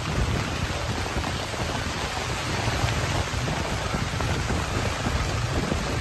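Steady rain falling, an even hiss of drops on the wet ground and surfaces.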